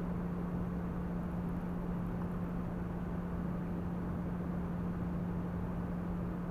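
A steady low hum with an even rushing noise beneath it, unchanging throughout.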